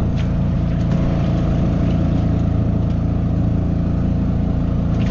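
An engine running steadily at an even speed, a constant drone with no revving.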